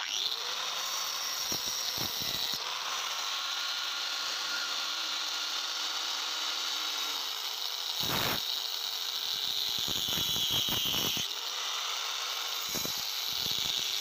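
A power tool working steel, running steadily with a strong high-pitched noise. A few brief knocks come through, about two seconds in, around eight seconds in and near the end.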